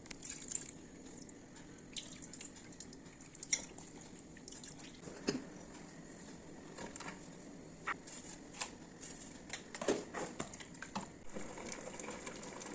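Water in a kitchen: scattered drips and small splashes with irregular light clicks, over a faint steady hiss.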